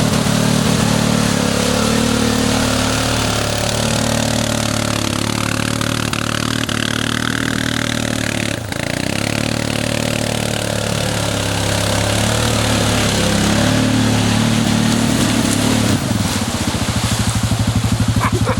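ATV engine running under changing throttle, its pitch rising and falling, with a brief drop about halfway through.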